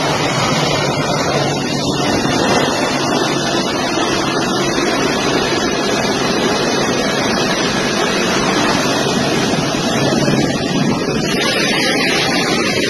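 Jet engines of a large transport aircraft running loud and steady close by, mixed with wind buffeting the microphone.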